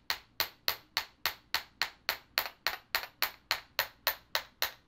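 A 3-ounce chasing hammer's planishing face tapping 16-gauge wire on a steel bench block in an even rhythm of about four strikes a second, each strike a short metallic ring. This is planishing: the light blows flatten the wire and draw out the outer part of its curve.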